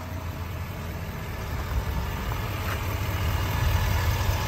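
6.6-litre Duramax V8 turbo-diesel idling, a steady low hum that grows slightly louder.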